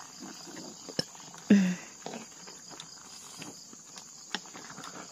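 Wooden ladle stirring rice in a metal pot over a wood fire, with a few sharp clicks, under a steady chirring of insects. A brief voice sound comes about one and a half seconds in.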